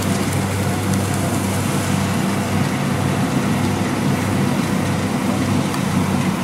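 Rice combine harvester engine running steadily.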